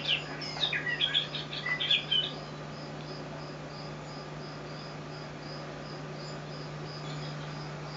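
Recorded birdsong played through a TV speaker: a flurry of quick chirps and trills, then a steady series of short high peeps about three a second. A steady low hum runs underneath.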